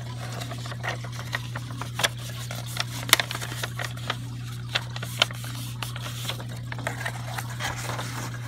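Paper and cardboard rustling and crinkling in scattered short clicks as printed sheets are handled and pulled out of a shipping box, over a steady low hum.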